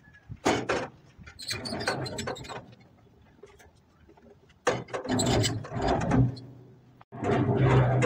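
Hand-cranked welded steel concrete mixer being worked by hand: its drum and gearing rattle and creak in four spells, each up to about a second and a half long, with quiet gaps between them.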